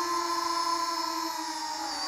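Transtec Beetle FPV quadcopter's motors and propellers whining steadily in flight, the pitch easing down slightly near the end.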